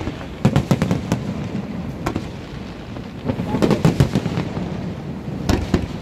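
Aerial fireworks bursting overhead: volleys of sharp cracks and bangs coming in clusters every second or two.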